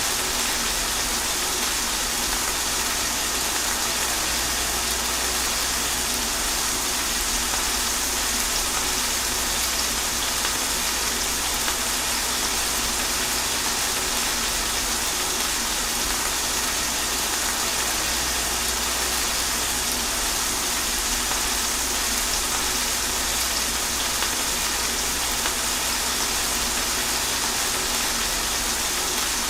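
Steady rain falling, an even hiss that does not let up, with a low rumble underneath.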